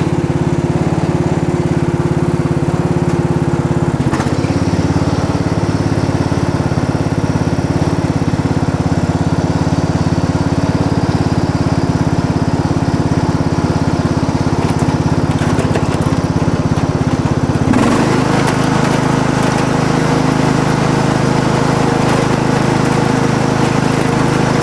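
Craftsman riding lawn tractor's engine running steadily while the tractor is driven along. The engine note shifts about four seconds in and again about three-quarters of the way through.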